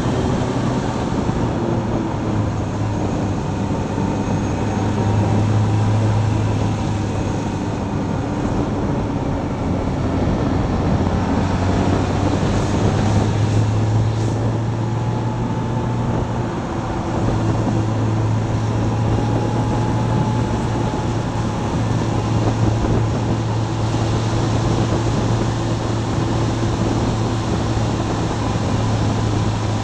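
Motorcycle engine running at a steady pace with wind rushing over the bike-mounted microphone: a constant low hum under a steady noisy rush.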